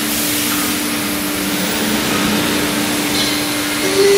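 ELECNC6090 CNC router's spindle motor running freely with no workpiece under the bit: a steady low whine over a loud, even airy hiss.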